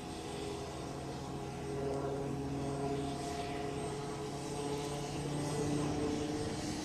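Piasecki X-49A SpeedHawk compound helicopter in flight: a steady drone of engine and rotor with several held tones that drift slightly in pitch, growing a little louder.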